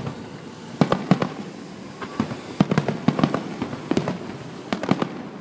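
Fireworks display: shells bursting in a rapid series of sharp bangs and cracks that come in quick clusters, several reports a second.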